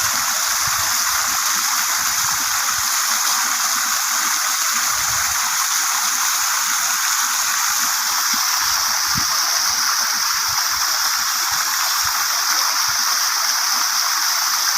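Waterfall pouring steadily, an even rush of water with no break.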